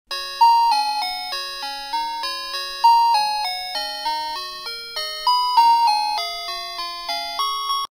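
Intro music: a quick melody of chiming, bell-like notes, about three a second, each ringing and fading before the next, stopping abruptly near the end.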